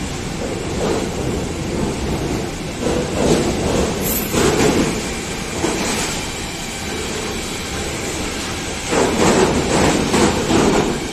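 Freight train of container and tank wagons passing close by at speed, its wheels running on the rails with a steady rumble. Louder clattering surges come about four seconds in and again from about nine seconds.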